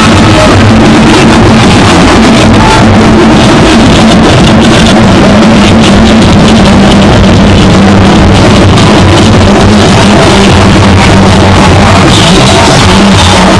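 Loud music with drums and a steady beat, played at full volume throughout.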